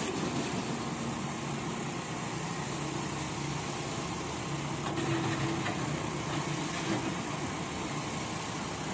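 Steady diesel engine running of a Doosan DX140W wheeled excavator as it digs and loads broken road material.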